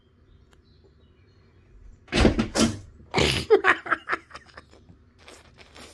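Sudden loud, harsh noise about two seconds in, two blasts close together, followed by a quick run of shorter loud bursts for about a second.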